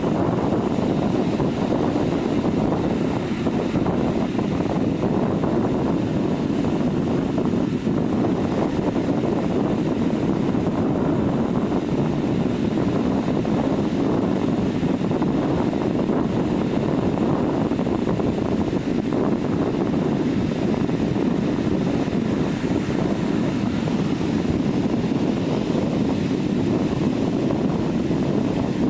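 Sea surf washing steadily onto a beach, a constant deep rushing with no single wave standing out.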